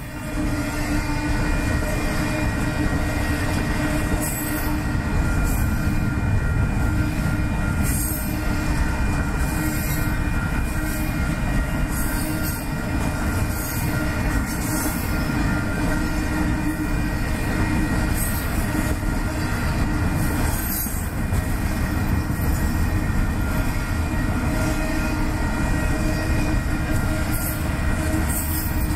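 Double-stack container freight train rolling past: a steady, loud rumble of wheels on rail with thin, steady high wheel squeal. A short clack comes every second or two.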